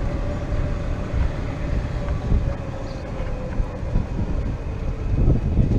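Golf cart driving along: a steady motor tone over a low rumble, with a few knocks and bumps near the end.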